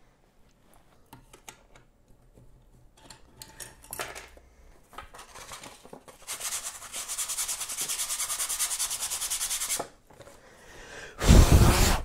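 Sandpaper (150 grit) rubbed by hand over the face of an engraved wood board: light handling clicks at first, then about three and a half seconds of fast, even back-and-forth sanding strokes that stop abruptly. A brief loud burst of noise comes near the end.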